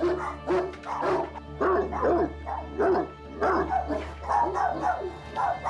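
A Great Dane barking over and over behind the front door, about two barks a second, set off by a knock on the door. Background music plays underneath.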